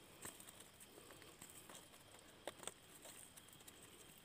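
Near silence, with a few faint clicks and rustles as fish are picked out of a cast net by hand.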